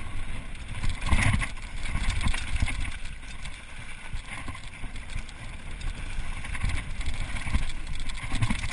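Mountain bike riding fast over a gravel forest trail: tyres rumbling and the bike rattling over bumps, with wind buffeting the microphone. The jolts are hardest about a second in.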